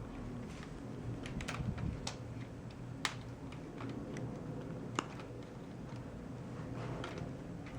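Scattered light clicks, irregular and sparse, two of them sharper about three and five seconds in, over a steady low hum.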